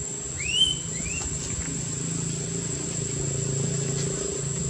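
Baby monkey giving two short, high cries near the start, each rising and then levelling off, about half a second apart, over a steady low hum and a steady high whine.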